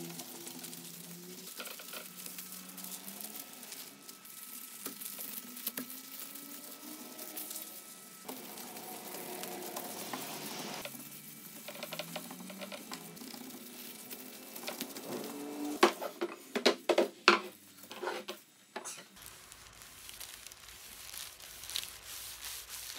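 A cloth in a plastic-gloved hand wiping finish onto a wooden tabletop: a soft, continuous rubbing and swishing, with a cluster of louder sharp sounds about two-thirds of the way through.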